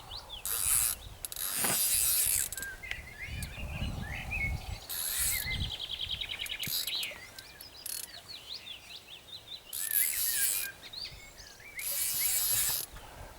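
Songbirds singing with quick rising and falling chirps and a rapid rattling trill, broken by about six short bursts of rustling noise close to the microphone.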